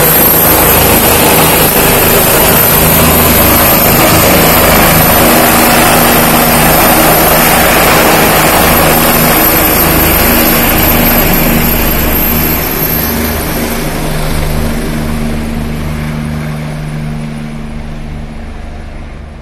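Helicopter taking off and climbing away: loud, steady rotor and engine noise for about the first twelve seconds, then fading steadily as it flies off.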